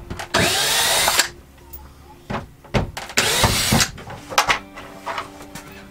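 Cordless drill with a square-drive bit running in two short bursts, about a second near the start and a shorter one about three seconds in, backing screws out of a fiberglass RV shower surround. Light clicks and knocks come between the bursts.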